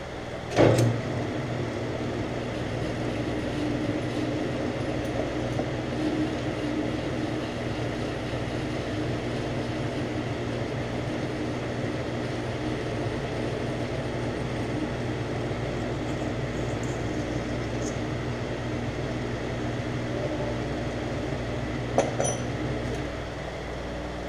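Metal lathe running steadily, turning and cutting a Delrin bushing: an even motor-and-drive hum with cutting noise. A sharp clunk about a second in and a click near the end.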